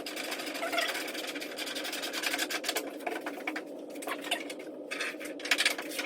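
Electric drill running in bursts, its bit cutting through a fender panel to open up mounting holes, with two short pauses a little past halfway.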